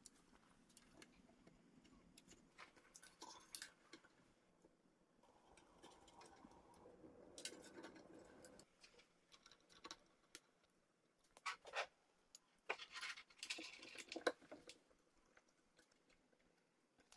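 Faint clicks and rustling from parts and wiring being handled during assembly, mostly near silence. There is a stretch of soft rustling near the middle and a cluster of sharper clicks later on.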